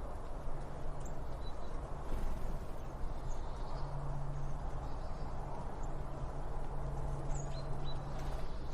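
Birds chirping faintly and sparsely, a few short high calls scattered through, over a steady low background hum.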